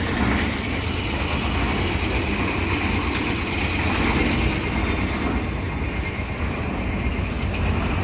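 Small diesel engine of a portable concrete mixer running steadily.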